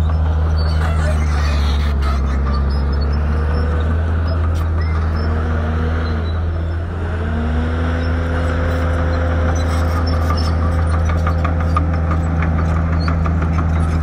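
Heavy diesel engines of earthmoving machinery running steadily with a deep hum. About halfway through an engine's pitch dips and climbs back up, and a fast rattling clatter joins in over the last few seconds.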